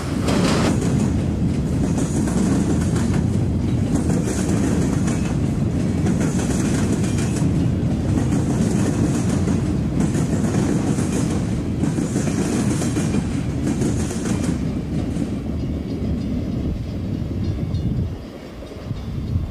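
Freight train cars rolling past: a steady rumble of steel wheels on rail with a repeating clatter. The sound falls away near the end as the last cars go by.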